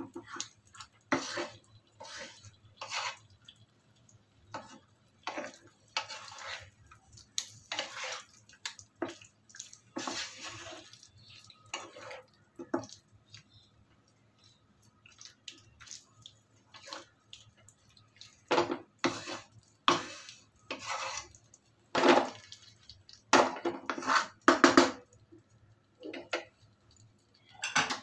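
Wooden spatula scraping and knocking against a non-stick frying pan as chicken pieces in a thick, wet creamy mixture are stirred and turned, in irregular strokes that come faster and louder in the last third. A faint steady low hum sits underneath.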